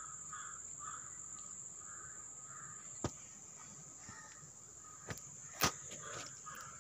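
Faint, quiet kitchen background with a steady high hiss and soft repeated calls in the distance, broken by a few short clicks, about three, five and five and a half seconds in, as raisins are pressed onto rice-flour sweets on a steel plate.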